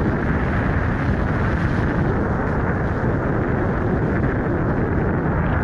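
Steady wind rushing over the microphone of a moving vehicle, with a constant low road rumble underneath.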